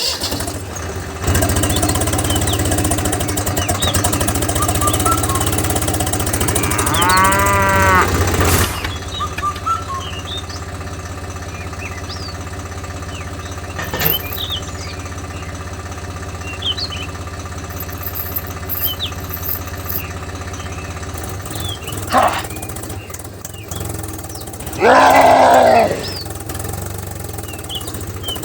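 A cow mooing twice, about seven seconds in and again near the end, over a steady low engine hum, with small bird chirps scattered throughout.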